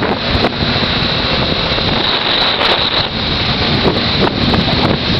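Wind rushing over the microphone of a moving motorcycle, with the bike's engine running steadily underneath at cruising speed.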